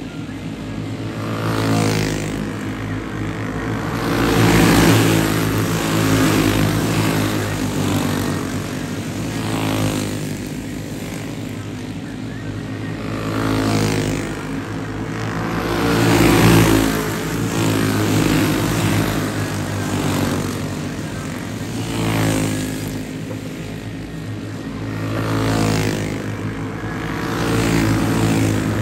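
A pack of racing karts with single-cylinder four-stroke clone engines running hard around a dirt oval, the buzz swelling as the karts pass by and fading between passes, several times over.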